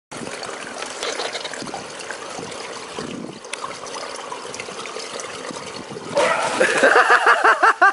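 Pool water lapping and trickling, then about six seconds in a loud splash as a swimmer surges up out of the water. A person laughs hard right after it, in quick repeated bursts.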